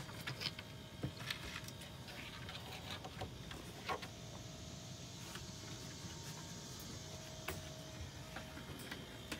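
A raccoon's claws clicking and scraping on bare plywood boards as it walks about, in scattered light ticks that come thickest in the first second or so, with single clicks later.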